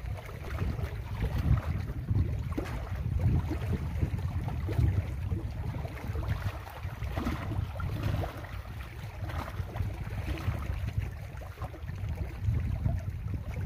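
Gusty wind buffeting the microphone, with small lake waves splashing against the shore rocks.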